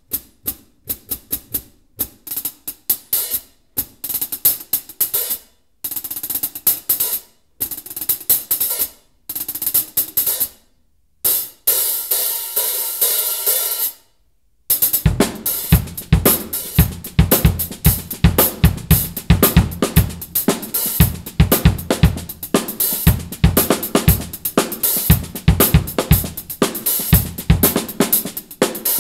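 Sabian Evolution HHX 14-inch hi-hats played alone with sticks in short phrases separated by pauses, including a longer sustained open wash. About halfway through, the full drum kit comes in: kick and snare drum in a steady groove with the hi-hats keeping time.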